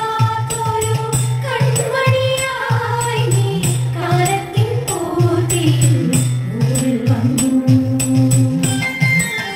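Thiruvathirakali dance song: a sung melody over music with a steady percussive beat.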